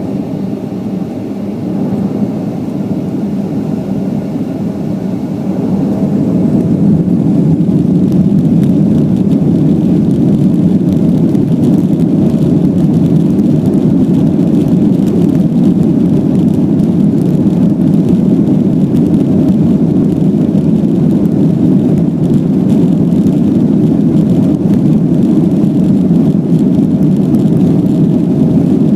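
Steady low rumble of a moving vehicle, growing louder over the first six seconds or so and then holding level.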